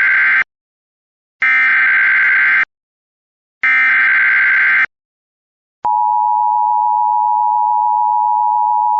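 Emergency Alert System SAME header: three bursts of warbling digital data tones, about a second each, with the first already under way. About six seconds in, the steady, harsh two-tone EAS attention signal starts and holds to the end. Together they announce the start of a new alert.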